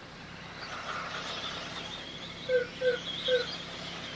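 A run of short, falling squeaky calls, about three a second, from an animal, starting about halfway in over a faint steady background.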